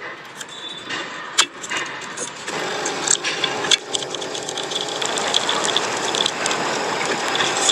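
Mechanical clicks and a few sharp knocks, then a steady mechanical noise that builds up from about two and a half seconds in.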